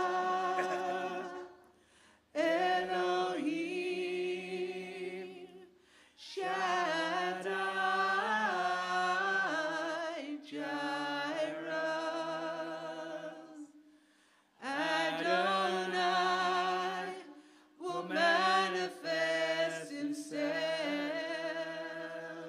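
Worship song sung by a female lead voice with other voices, with no instruments heard, in long held phrases of a few seconds each broken by short pauses.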